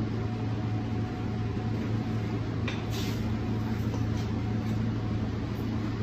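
Steady low hum of a kitchen extractor fan, with a few faint clicks of metal utensils on crushed ice around the middle.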